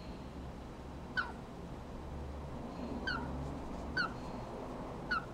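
Baby yellow-sided green-cheeked conure chick giving four short, thin chirps, each dipping slightly in pitch, spaced about a second apart.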